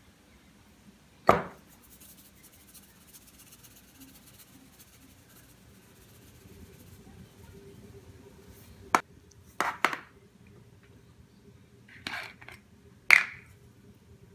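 A few sharp clicks and knocks from small spice jars being handled and set down on a countertop, the loudest about a second in and near the end, with quiet stretches between.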